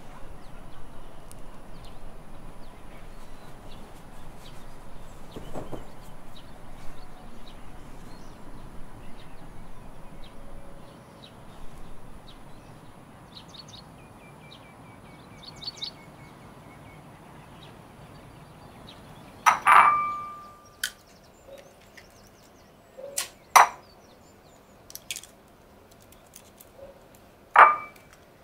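Soft outdoor background with a few faint bird chirps, then sharp clinks and knocks of dishes and utensils on a tiled kitchen counter. The two loudest clinks ring briefly.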